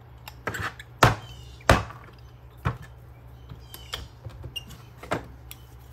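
Sharp metal clicks and knocks as a small screwdriver pries and scrapes at a 1982 Honda Gold Wing rear brake caliper to free its pad spring. There are about five louder strikes, the loudest within the first two seconds and two of them ringing briefly, among lighter ticks.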